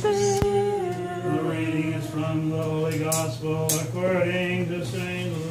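Unaccompanied Orthodox liturgical chant: several voices singing slow held notes that move step by step, lower voices under a higher melody. A single sharp click sounds about half a second in.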